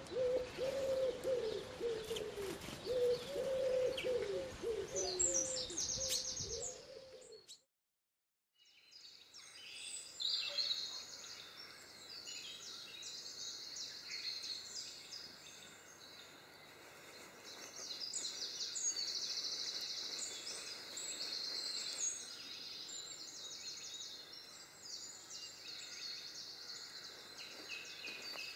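A pigeon cooing in low repeated phrases with a few high chirps over it, then about a second of silence. After that, European greenfinches twitter with fast high trills.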